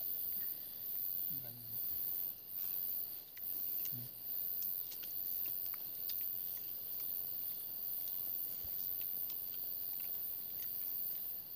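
Crickets trilling high-pitched in bursts about a second long, settling to a steadier trill about halfway through. Now and then there are faint low voices and a few soft clicks.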